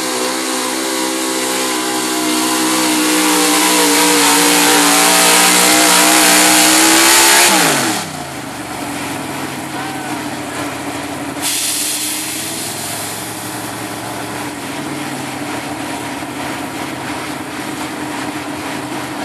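Pulling truck's engine held at high revs under load, its pitch creeping up, then the revs fall away sharply about eight seconds in and the engine runs on at low revs.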